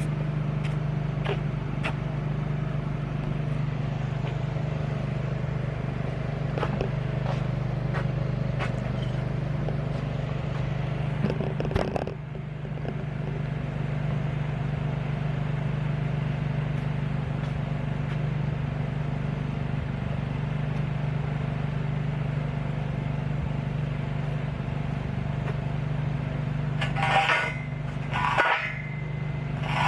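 Engine-driven welding generator running steadily, with scattered short clicks and knocks and a few louder bursts near the end.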